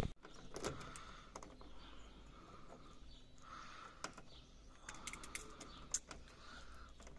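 Faint scattered snips and clicks of electrician's scissors cutting and stripping the insulation from the wires of a multi-core cable, with light handling of the cable.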